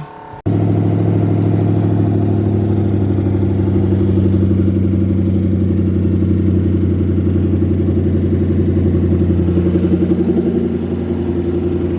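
Twin-turbo Ford Boss 302 V8 idling steadily, cutting in abruptly about half a second in. The owner hears a loud, typewriter-like ticking knock from this engine and doesn't know whether it is rod knock.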